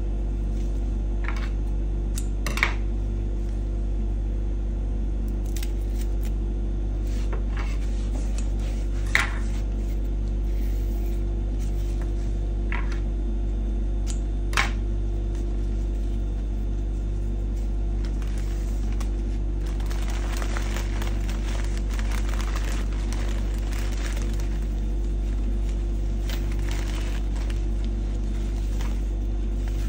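Scissors snipping satin ribbon, a handful of sharp clicks in the first half, then a few seconds of ribbon and wrapping paper rustling about two-thirds of the way through, over a steady low hum.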